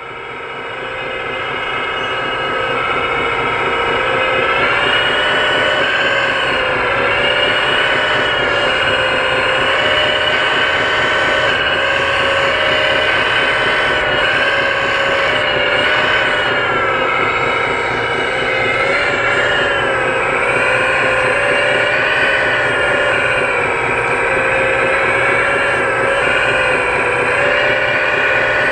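1/14-scale RC Cat 330D hydraulic excavator working: a continuous high whine from its hydraulic pump that wavers up and down in pitch as the boom and bucket load up while digging and swinging. The sound fades in over the first couple of seconds.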